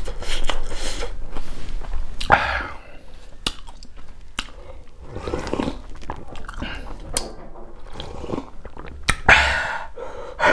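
Close-miked eating sounds: chewing singju, a Manipuri salad, with wet mouth clicks and smacks. Around the middle comes a drink from a small steel jug, and a few louder wet bursts stand out.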